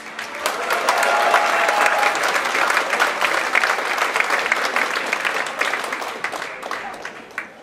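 Audience applauding, building over the first second and fading out near the end.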